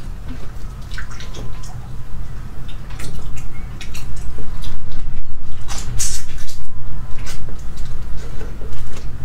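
Close-miked eating of sauce-covered crayfish: wet sucking and smacking at the mouth mixed with irregular crackles and clicks of shells being pulled apart and bitten, busier and louder from about three seconds in.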